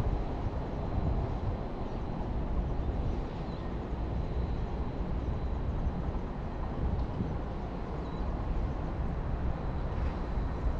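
Steady low outdoor rumble beside an urban canal, with a few faint high chirps.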